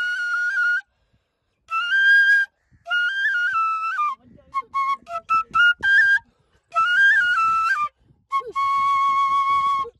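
Metal side-blown flute playing a folk melody in short phrases, the pitch stepping up and down between notes, with brief pauses for breath. A run of short, separate notes comes midway, before longer held phrases return; the last phrase holds one steady note.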